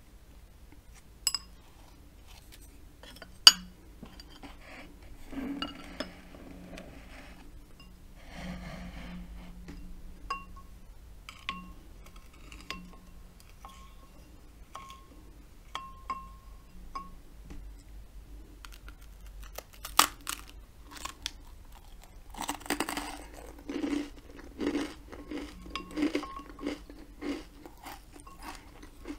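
Wooden spreader scraping jam across buttered toast, with a few sharp clicks and taps, then a bite into the toast and crunchy chewing in a steady rhythm through the last several seconds.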